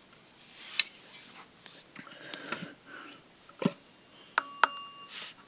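Quiet handling noise: a few light clicks and knocks as objects are moved, with sniffing close to the microphone. A faint steady tone sounds briefly near the end.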